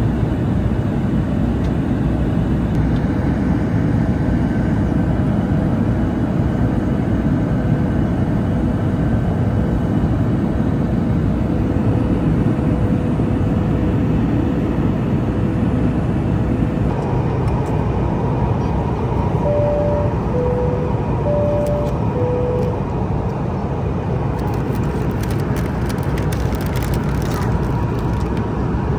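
Steady cabin noise of a Boeing 737 MAX jet airliner in flight, a dense rumble of engines and airflow. About two-thirds of the way through, a two-tone high-low cabin chime sounds twice.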